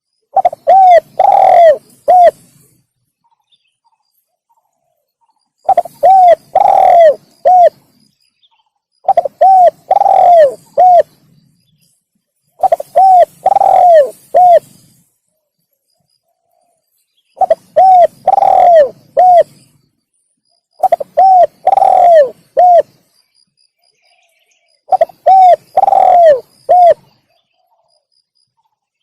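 Spotted dove (tekukur) cooing, played as a lure call: seven repeated phrases about every three and a half to four seconds, each a run of about four low coos with a longer drawn-out note in the middle. The calls are very loud.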